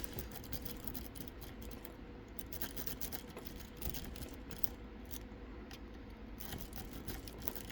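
A wave rake scrubbing in and out of the keyway of a 304 stainless steel padlock under tension: a faint, continuous stream of small metallic scratches and clicks as the pins are raked.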